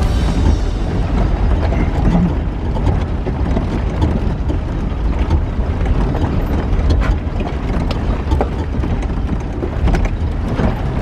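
Inside the cab of a four-wheel-drive vehicle driving slowly over a rough, potholed dirt track: a steady low engine and road rumble with the body and loose parts rattling and knocking over the bumps.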